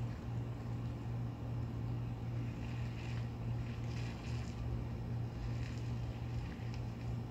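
A steady low hum under a faint hiss, with soft rustles of breeze a few times.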